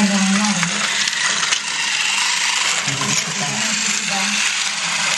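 Motorised plastic toy dump truck running along its plastic track: a steady, dense rattling clatter of its small motor, gears and wheels on the plastic.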